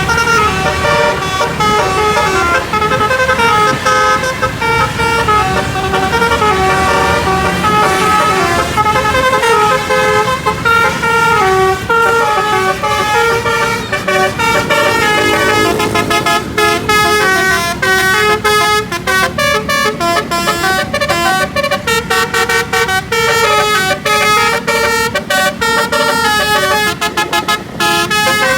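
Basuri V3 telolet bus horn, a multi-tone air horn, playing a tune: quick stepped notes one after another, loud and continuous. Over the second half sharp clicks sound between the notes.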